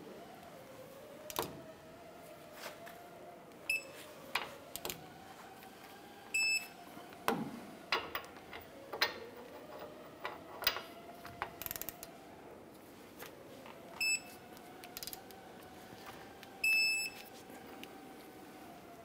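Electronic torque wrench beeping as bolts are brought to torque: a short beep, then a longer one about three seconds later, and the same pair again. Sharp metallic clicks and knocks of the wrench and tools on the bolts come in between.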